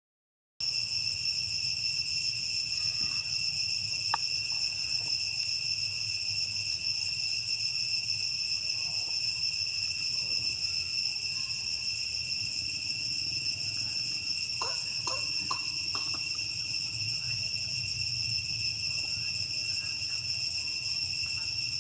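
Insects keeping up a steady, unbroken high-pitched drone, with a low rumble under it and a few faint clicks about a quarter of the way in and again past the middle.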